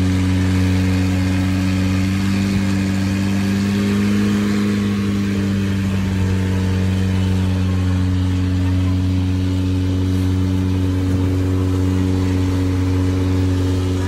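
Wooden boat's engine running steadily underway, a loud even drone that lifts slightly in pitch about four seconds in and then settles.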